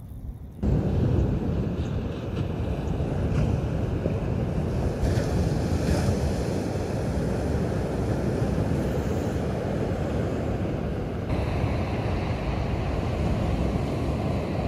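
Wind rumbling on the microphone over ocean surf washing onto the beach, starting suddenly under a second in.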